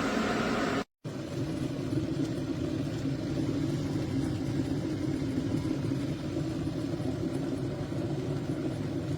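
Stainless steel electric kettle heating water, a steady low rumble. It cuts out briefly about a second in, then resumes.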